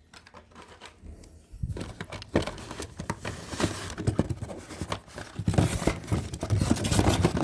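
Packaged Hot Wheels cars on their cardboard-and-plastic blister cards being handled and pulled from the case: crinkling plastic and card with many small clicks, sparse at first and busier and louder from about two seconds in.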